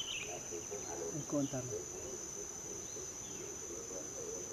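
Steady high-pitched drone of insects trilling, with a short low voice-like sound about a second in.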